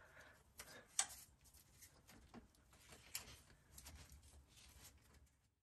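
Faint, scattered clicks and taps of hand tools working at the stubborn bolt that holds the ignition coil on a buggy's engine. The sound cuts off suddenly near the end.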